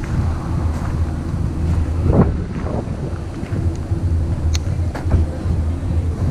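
A motor running steadily in a low drone, with wind buffeting the microphone and a brief louder noise about two seconds in.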